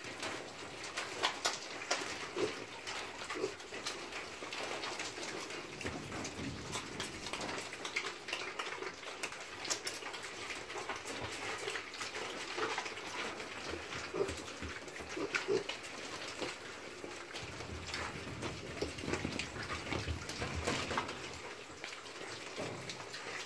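Piglets feeding: a steady crackle of chewing and scuffling, with short grunts now and then.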